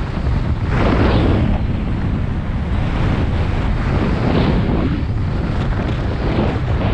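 Wind buffeting the action camera's microphone at speed down a ski run, mixed with the scrape of edges carving on groomed snow, swelling with each turn.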